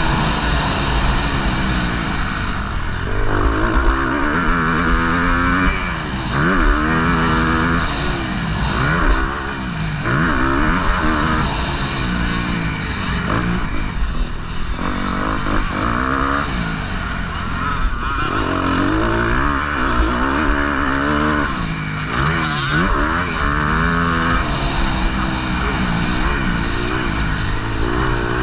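Motocross bike engine racing, revving up and down over and over as the throttle opens and closes through gear changes, heard close from a helmet-mounted camera. The pitch climbs and drops every second or two, with a rushing hiss that comes and goes.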